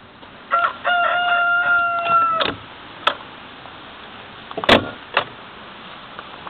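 Rooster crowing once, a call of about two seconds, followed by three sharp knocks, the second one loudest.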